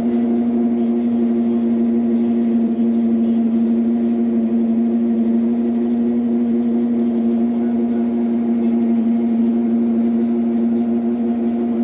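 Electrolux LT12F washing machine giving off a steady, loud hum on one unchanging pitch: the strange noise its owner reports.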